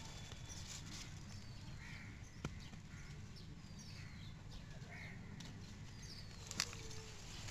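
Faint bird calls in the background: short, high, falling chirps about once a second, with two brief sharp clicks.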